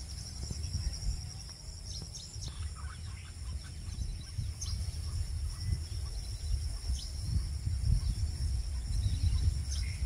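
Outdoor ambience: a steady, finely pulsing high insect trill, a low rumble on the microphone, and a few short bird chirps scattered through.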